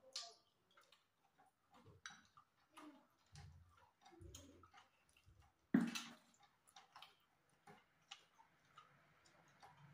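Close-up eating sounds of two people eating pitha: scattered small mouth clicks and smacks at an irregular pace, with one louder knock about six seconds in.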